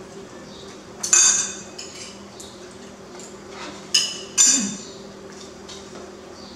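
Metal spoon and fork clinking against a ceramic plate, three bright ringing clinks: one about a second in and two close together just after four seconds, over a faint steady low hum.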